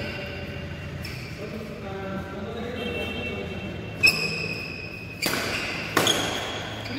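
Badminton rackets hitting a shuttlecock in a rally: three sharp strikes, about four seconds in, a little over a second later, and again just under a second after that, each with a short ringing after it.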